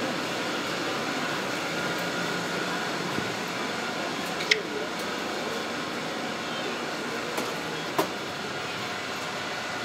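Steady indoor background noise, with two sharp clicks: one about four and a half seconds in, the other near eight seconds.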